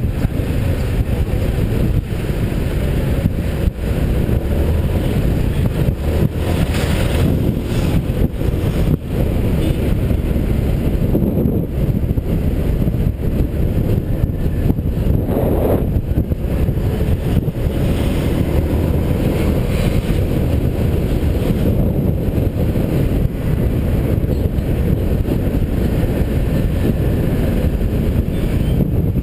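Motorbike riding through town traffic, heard from a GoPro mounted on the bike: a steady, heavy rumble of wind buffeting the microphone over the road and engine noise.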